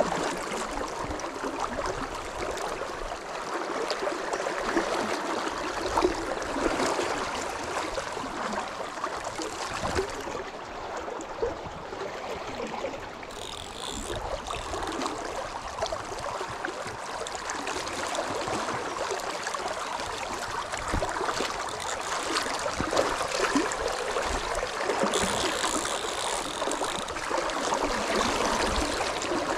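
Fast, shallow river current rushing steadily past close by.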